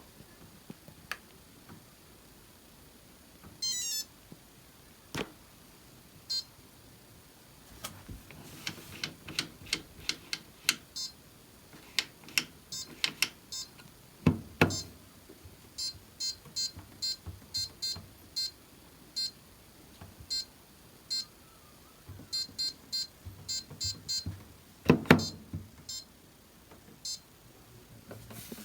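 Maytag washer and dryer control panel being operated: button presses click, many answered by a short high beep from the panel's small buzzer, sometimes in quick runs. Two louder thumps stand out, about halfway through and near the end.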